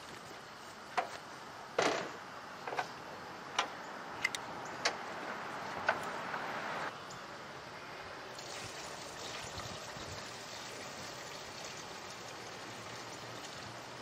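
A few knocks and clicks as the backpack sprayer is handled and set down, then a steady pour of liquid concrete sealer from a plastic gallon jug into the sprayer's tank, starting about eight seconds in.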